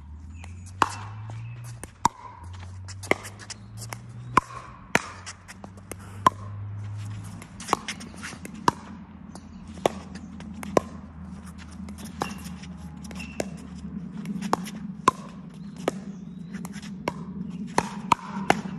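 Pickleball paddles striking the hollow plastic ball back and forth in a long doubles rally, with the ball bouncing on the hard court: a string of sharp, irregular pocks, about one a second.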